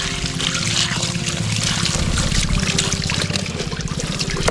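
Water from a garden hose spraying and splashing into a plastic toy dump truck bed, rinsing out wet sand and mud. A steady low hum runs underneath.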